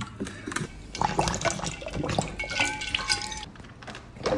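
Dog lapping water from a bowl, with irregular splashing and dripping. A short squeaky tone sounds partway through.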